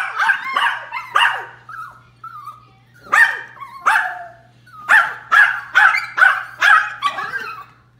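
Small long-haired Chorkie-type dogs barking in short, sharp barks. A run of barks comes at the start, then single barks around three and four seconds in, then a quicker run of barks from about five to seven seconds.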